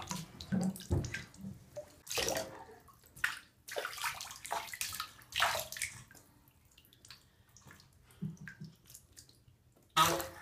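Bath water poured from a small plastic toy cup and splashing in a shallow bathtub, in irregular bursts.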